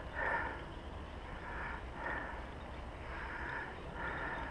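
A person breathing audibly through the nose in short breaths, five in a few seconds at uneven intervals.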